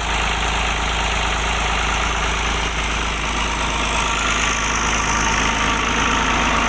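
New Holland 480S tractor's diesel engine running steadily, powering two belt-driven tubewell pumps through its pulley.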